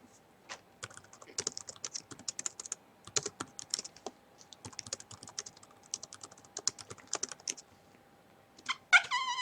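Rapid, irregular clicking and tapping for about seven seconds, then a high, wavering cry near the end.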